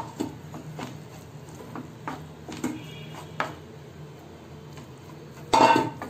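Wooden spatula tapping and scraping in a nonstick pan as cooked rice is mixed with mint paste, a few soft knocks every second or so. About five and a half seconds in, a louder ringing clank as the steel bowl of rice strikes the pan.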